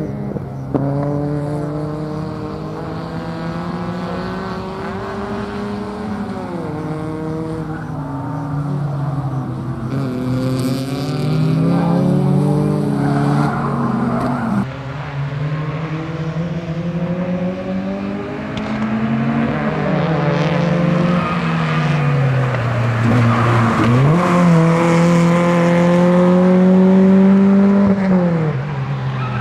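Competition car's engine driven hard through a tight slalom course, its pitch climbing under acceleration and dropping sharply several times. It grows louder toward the end as the car draws near.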